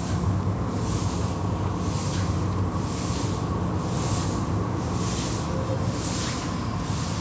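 Automatic car wash's hanging cloth wash strips swishing over a foam-covered car in a steady rhythm, about three swishes every two seconds, over a continuous low hum of the wash machinery.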